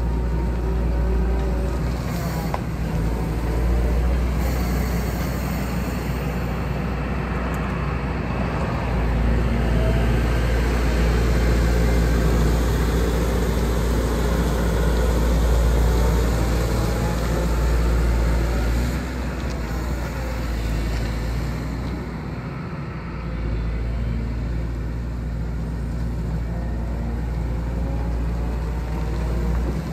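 Diesel engine of a Hyundai R170W-7A wheeled excavator running under load while the machine maneuvers. The engine note rises and falls in pitch and loudness, louder through the middle.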